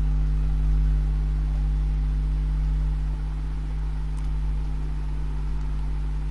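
Steady low hum that holds level without a break, with no other distinct sound over it.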